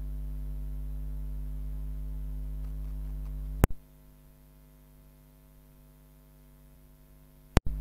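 Steady electrical mains hum with an even low buzz. A sharp click about three and a half seconds in cuts it to a much fainter level, and a second click near the end brings it back.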